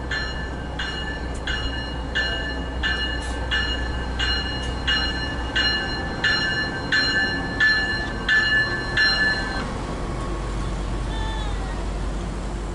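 Warning bell for an approaching light rail train, dinging evenly about three strikes every two seconds and stopping about ten seconds in, over a steady low rumble.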